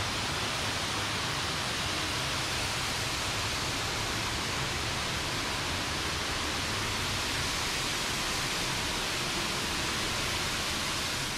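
Steady rush of falling water, an even hiss that stays level throughout.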